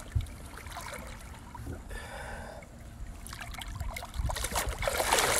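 Water trickling and splashing against the boat, with a louder burst of splashing near the end; wind rumbles on the microphone throughout.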